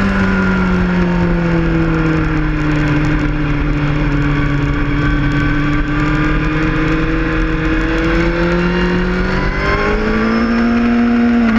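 Engine of the vehicle being ridden, heard from onboard over wind and road noise. The revs drop over the first few seconds, hold fairly steady, then climb again near the end.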